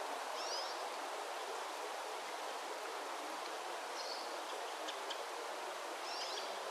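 Forest ambience: a steady rushing noise with short, high bird chirps about half a second in, about four seconds in and near the end.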